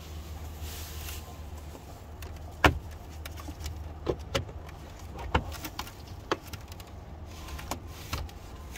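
Plastic dashboard trim panel being handled and pried at by hand: scattered clicks and knocks of the panel against its clips and the surrounding dash, the loudest about two and a half seconds in, over a steady low hum.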